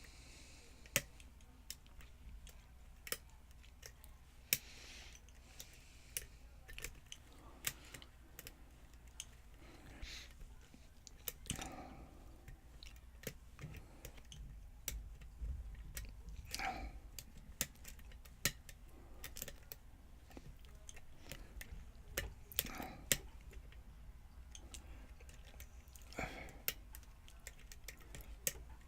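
Lock picks working the pins of a pin-tumbler challenge lock with a Yale-style keyway: small, irregular clicks and light scraping as the pins are set, with the lock not yet open.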